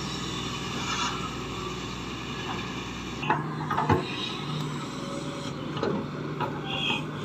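Diesel engine of a Shantui crawler excavator running steadily as it digs in mud, with a few sharp knocks about halfway through.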